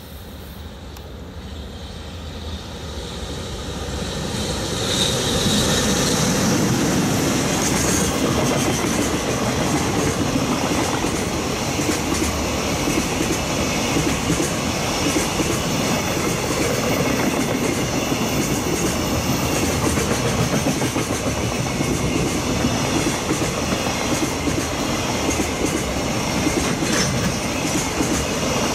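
Freight train passing: an EH500 electric locomotive comes through, then a long rake of container wagons rolls by with a continuous clickety-clack of wheels over the rail joints. The sound builds over the first few seconds as the train arrives, then holds steady and loud.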